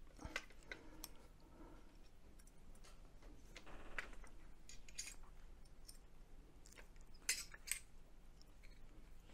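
Faint, scattered clicks and light metallic clinks of solar tracker brackets, bars and bolts being handled and fitted together, with a short rasp about four seconds in and the sharpest two snaps about seven seconds in.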